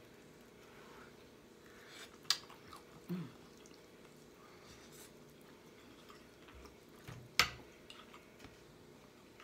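A person eating: soft chewing and wet mouth sounds, broken by two sharp clicks about two seconds in and about seven seconds in, with a brief low sound just after the first click.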